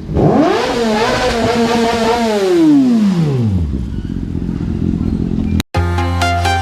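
Kawasaki ZX6R inline-four through an Austin Racing exhaust revved hard: the note climbs quickly, holds high for about two seconds, then falls back. About five and a half seconds in, the sound cuts out and electronic dance music starts.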